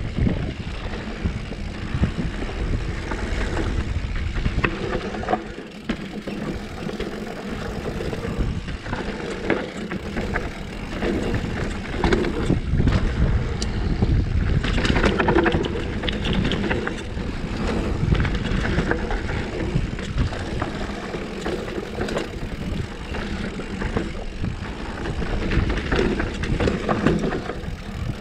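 Specialized Stumpjumper mountain bike rolling fast down a dirt trail: a steady rush of wind buffeting the microphone, tyres on dirt, and the bike rattling with frequent sharp clicks and knocks over bumps.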